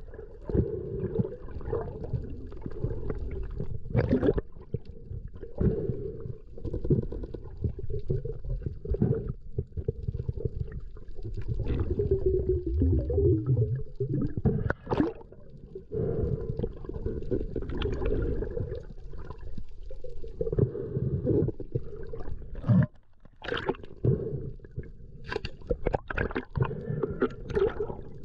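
Muffled gurgling of water and bubbles, heard as if from underwater, with scattered clicks and knocks throughout and a brief wavering low sound about halfway through.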